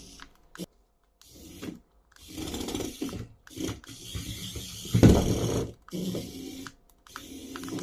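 Plastic toy being handled: irregular short bursts of clicking and rattling, separated by brief silent gaps, the loudest burst about five seconds in.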